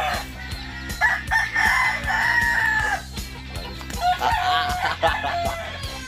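Rooster crowing twice: one long crow about a second in that holds and then falls away, and a shorter crow at about four seconds. Steady background music plays underneath.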